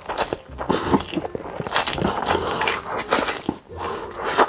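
A person slurping mouthfuls of spicy stir-fried instant noodles close to the microphone, in a run of quick, noisy slurps with brief gaps of chewing between.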